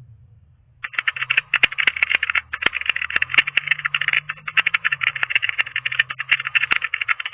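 A fast, irregular rattling clatter of sharp clicks, starting about a second in and running on without a break.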